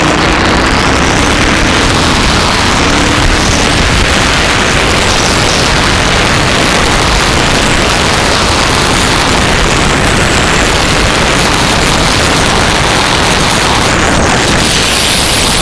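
KTM LC8 V-twin motorcycle riding off-road, its engine largely buried under a loud, steady rush of wind noise on the microphone.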